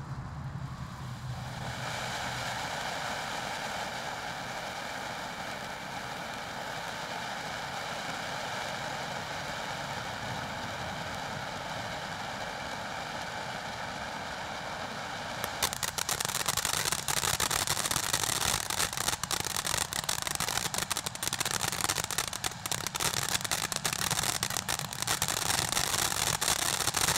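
Winda Snow Cone Jr. Lemon fountain firework spraying sparks with a steady hiss. About halfway through, it switches to a louder, dense crackling.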